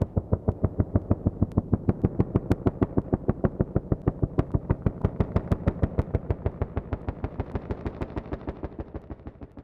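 Helicopter rotor chopping in a fast, even beat of about seven a second, fading away and stopping near the end.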